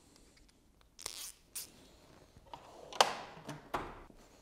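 Metal hand tools clinking in a tool-cart drawer as a ratchet and socket are picked out, with a few light clicks. About three seconds in the steel drawer slides shut with a loud clack, and a second knock follows just after.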